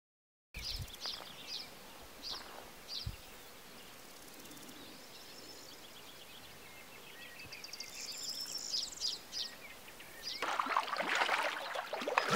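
Small birds chirping and singing in short repeated calls. About ten seconds in, the babble of a shallow, stony stream comes in and becomes the loudest sound.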